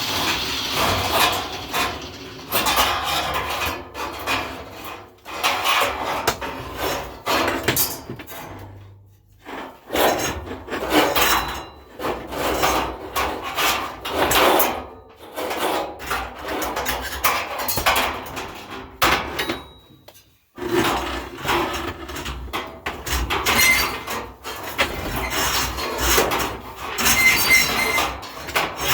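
Hand work on an old hand-crank tow-truck winch being unhooked: an irregular run of metal knocks, clanks, scraping and rubbing, with short pauses.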